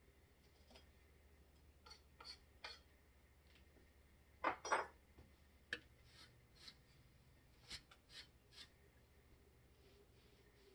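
Faint, scattered clicks and light scrapes over a low steady hum, with a close pair of louder clicks about halfway through.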